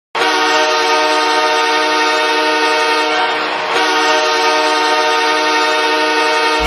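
Ice hockey goal horn sounding two long blasts of a chord of several steady tones. The first fades about three seconds in and the second follows half a second later. The horn signals a goal scored.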